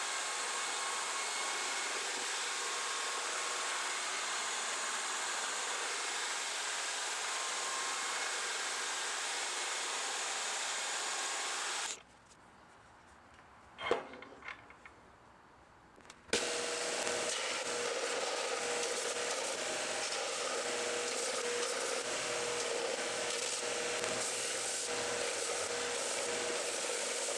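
Bandsaw cutting the sprue off a cast-brass sand rammer, a steady sawing noise that stops about twelve seconds in. After a short pause with one knock, a belt sander runs steadily with a faint hum, grinding the brass head.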